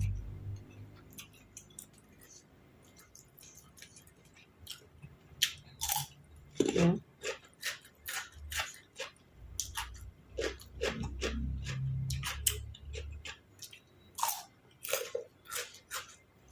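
A person chewing and crunching a mouthful of spicy seafood salad with raw side vegetables, close to the microphone. The sharp crunches come thick and fast from about four seconds in, with a low rumble in the middle.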